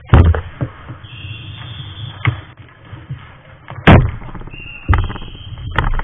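A run of sharp knocks and thuds from a ball hockey scramble in front of the net: the ball and sticks striking the goalie's pads and gear close to the worn camera, about six hard hits, the loudest near the start and about four seconds in.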